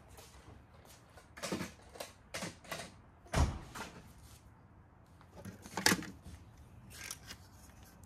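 Vintage toy train cars being lifted out and set down: a series of knocks and clatters, with the loudest knocks about three and a half and six seconds in.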